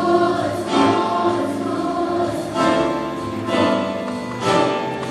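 Choir singing a gospel song with instrumental accompaniment.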